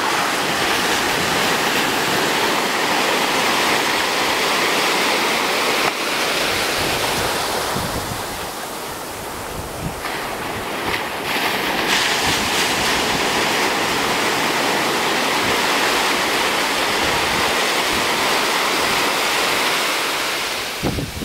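Ocean surf breaking and washing in over a sandy beach as a steady rushing wash, easing a little about eight seconds in, with wind rumbling on the microphone.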